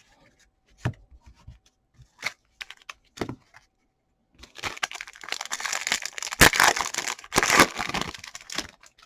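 A few light taps as trading cards are stacked, then about four seconds of crinkling and tearing as a foil card-pack wrapper is ripped open, with two sharp cracks in the middle of it.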